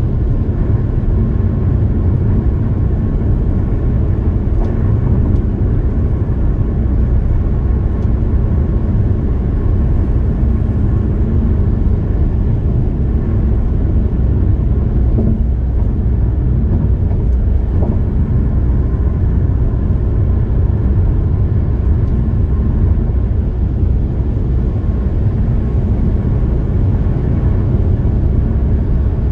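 Steady road and tyre noise with engine hum from a car cruising at highway speed, heard inside the cabin as an even low rumble.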